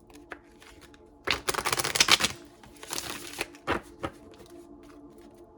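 A deck of cards being shuffled: a burst of rapid flicking clicks about a second long, a shorter second burst, then a few single taps as the cards settle.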